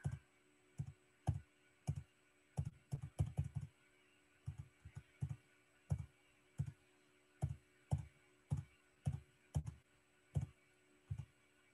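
Computer keyboard keys pressed one after another, about two presses a second in an uneven run, paging quickly forward through presentation slides.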